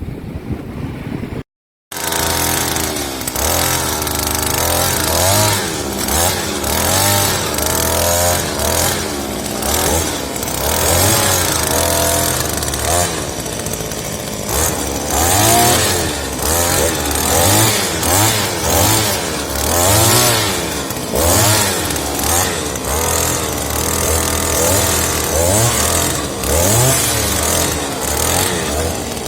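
Firman petrol earth auger's small two-stroke engine running, revved up and down over and over as the throttle is worked while it bores into the ground. The sound breaks off briefly about two seconds in, then carries on.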